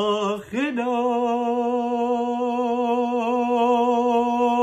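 A man singing: a brief lower note, then a long held higher note of about four seconds with a light vibrato.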